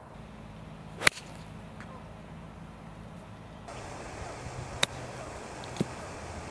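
Golf club strikes on the ball: a sharp crack about a second in, then a crisp club-on-ball click from a short chip shot about five seconds in, and one more click a second later.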